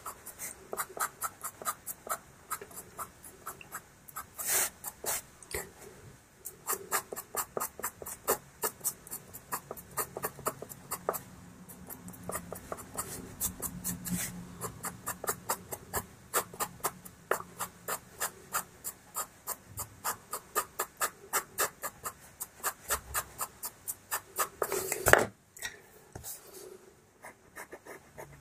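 Pastel pencil scratching on pastel paper in quick, short strokes, about three a second, laying in fur texture. There is one louder clack about 25 s in.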